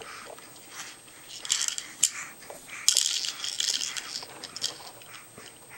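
Baby chewing and sucking on a plastic teething ring: irregular wet clicks and smacks, busiest in the middle.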